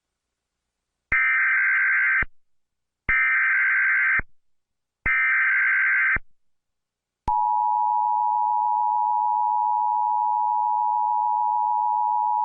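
Emergency Alert System alert opening: three short bursts of SAME header data tones, each about a second long and evenly spaced, carrying the coded alert data for receivers. About seven seconds in comes the steady two-tone EAS attention signal, which announces that an emergency message follows.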